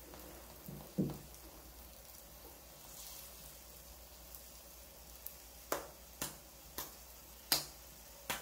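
Hotteok frying in an oiled pan with a faint steady sizzle. Sharp clicks of a utensil or object on the pan come once about a second in and five times in the last three seconds.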